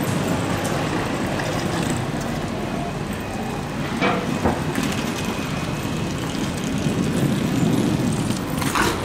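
Steady rumble and hum of a railway station platform with trains standing by, with a few sharp knocks about four seconds in and again near the end.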